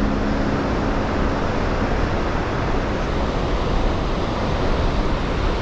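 Waterfall with a steady, loud rushing roar of falling water.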